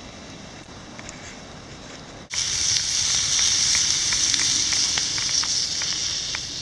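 Campfire of sticks crackling faintly. About two seconds in, a frying pan with two patties takes over, sizzling loudly over the open fire with many small spitting pops.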